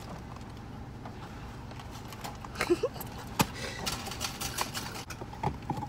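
Two young women laughing inside a car, a run of short bursts about three and a half seconds in, over the steady low hum of the car. A sharp knock comes just before the laughter.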